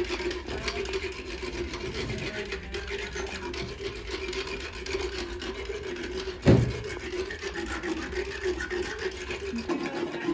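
Motorized dental float running against a horse's teeth, a steady whirring hum as the teeth are filed down. One loud thump about six and a half seconds in.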